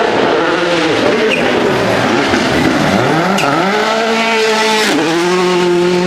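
Rally car accelerating hard, engine note climbing steadily and then dropping sharply at a gear change about five seconds in before rising again, over tyre and road noise.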